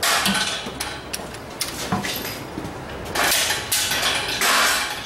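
Ratcheting torque wrench swung in short rasping strokes as it tightens cylinder head bolts, on the final 14 kgf·m pass of the tightening sequence. There are about five strokes, three close together near the end.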